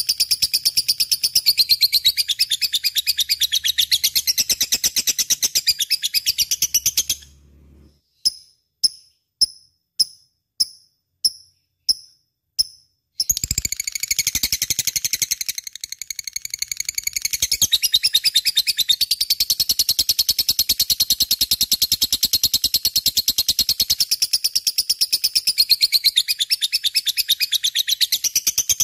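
Lovebird chattering: a fast, continuous, high-pitched stream of chirps. About a quarter of the way in it pauses briefly, gives about eight single chirps at an even pace, then the dense chatter resumes.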